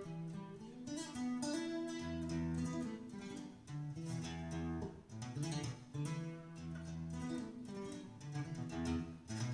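Instrumental break of a recorded song: plucked guitar lines over a bass line, with no singing, played back through a stereo amplifier and loudspeakers.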